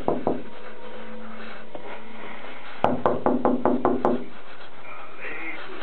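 Quick, evenly spaced rapping knocks on a hard surface, each with a brief ringing tone: the tail of one run just at the start, then a run of about eight knocks nearly three seconds in.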